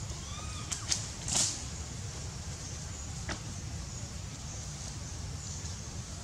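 Outdoor ambience: a steady low rumble with a few sharp clicks, and a short rustling crackle about a second and a half in. A faint short chirp-like call sounds near the start.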